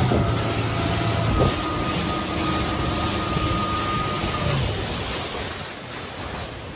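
Workboat's engine running under way with water rushing along the hull, a steady whine riding on it; about two-thirds of the way in the engine eases off and the boat slows, leaving mostly the wash of water.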